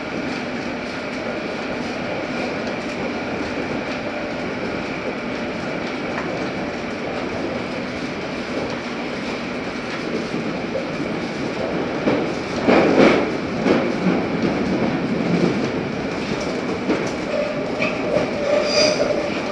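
Inside a London Underground S8 Stock carriage running in a tunnel: a steady rumble of wheels on rail with a faint steady whine. About two-thirds of the way through there is a short run of loud clattering knocks.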